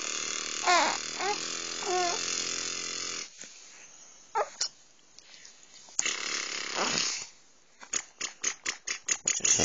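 A baby cooing and squealing: a few short, high vocal sounds that rise and fall in pitch, then near the end a run of quick breathy sounds, about four a second.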